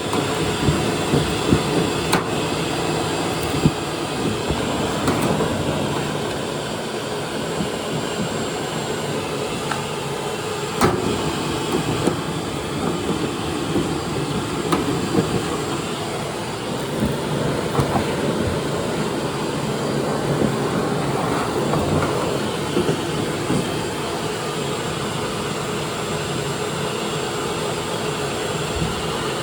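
Vacuum cleaner running steadily while sucking built-up lint out of a dryer's blower fan housing, with occasional clicks and knocks on top. The lint had put the fan off balance, causing the dryer's rattling, vibrating noise.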